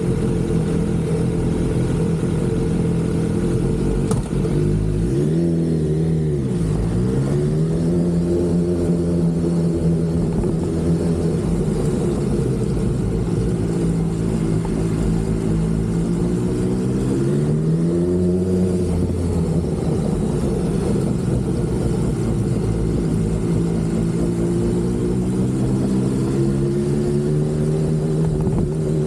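BMW S1000RR inline-four engine running at a steady pitch. It drops and climbs back about five seconds in, swells and eases off again around eighteen seconds, and starts rising near the end.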